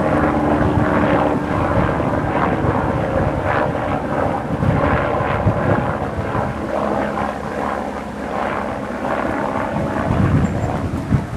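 An engine droning steadily under a rushing noise, with a couple of held low tones that fade out about halfway through.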